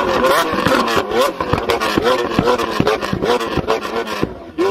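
Lamborghini Aventador LP700-4's V12 being revved while the car is standing still: quick repeated throttle blips, about two a second, each rising in pitch and dropping back, with a short lull near the end.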